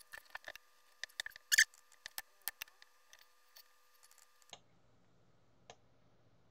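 Irregular sharp clicks of a computer mouse and keyboard, in a quick cluster over the first few seconds, loudest about one and a half seconds in. After about four and a half seconds the background changes to a faint low hum, with a couple of single clicks.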